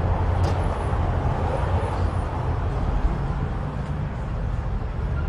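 Steady outdoor street noise: a low rumble of road traffic.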